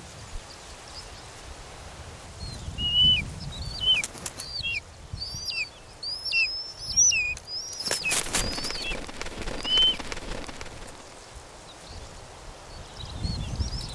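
Buzzard chicks at the nest calling in short, high, downward-slurred cries, with a brief flurry of wing flapping about eight seconds in.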